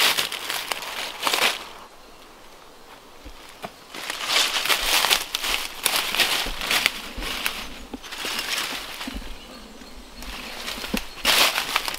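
Footsteps crunching and rustling through ivy, twigs and dry leaf litter, in several irregular bursts with quieter gaps between.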